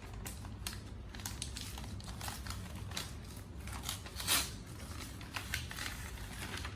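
Gift wrapping paper being torn open and crinkled by hand: scattered rustles and crackles, with one louder rip about four seconds in.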